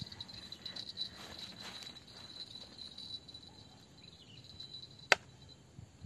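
Insects chirring steadily in one high, even tone, with a single sharp click about five seconds in.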